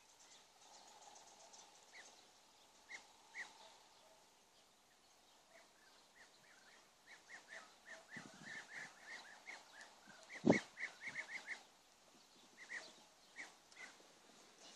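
A flock of European bee-eaters calling: short notes, sparse at first, then coming thick and fast through the middle. A single sharp knock about ten and a half seconds in.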